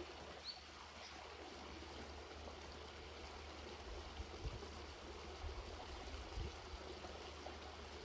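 Faint, steady rushing of running water, with one short high chirp about half a second in.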